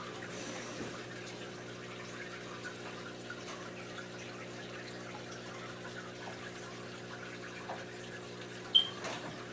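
Aquarium bubbling and water trickling steadily, over a steady low hum of the tank's air pump or filter. A short, sharp high-pitched chirp sounds once near the end.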